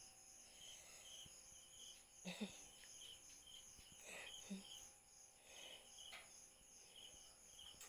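Near silence with crickets chirping faintly in short trills that repeat throughout.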